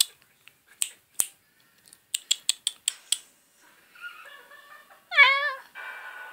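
A cat meows once, briefly, just after five seconds in. Before it come quick runs of sharp clicks, about six a second, and after it faint steady music.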